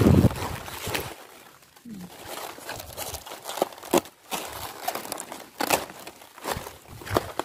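Cabbage leaves rustling and crackling as they are handled close to the microphone, with irregular sharp snaps. A dull handling bump on the microphone at the very start.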